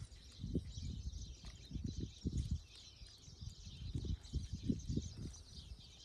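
Hands squeezing and mixing a wet grated-potato and egg mixture in a metal bowl, giving soft, irregular squishing pulses. Birds chirp steadily in the background.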